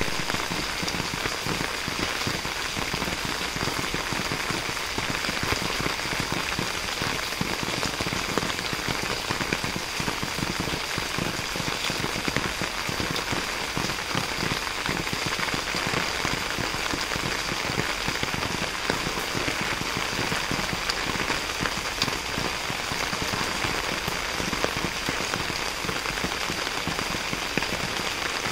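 Steady rain falling: an even hiss made of many small drop hits, unchanging in strength, with a steady high-pitched band running through it.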